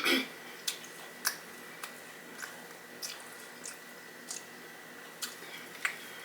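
Close-miked chewing of a crispy fried chicken tender: soft, wet mouth clicks coming a little more than once a second.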